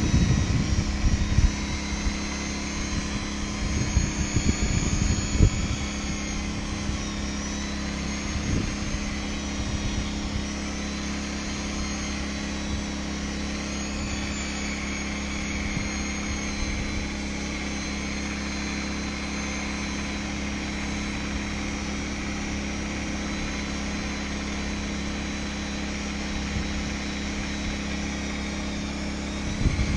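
Hand-held electric polisher buffing a fiberglass boat hull, its motor running at a steady speed with a constant whine.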